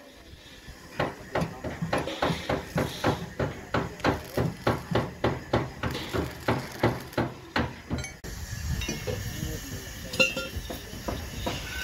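Steady hammering on metal, about three to four ringing strikes a second, which cuts off abruptly about eight seconds in. After that come voices over general site noise.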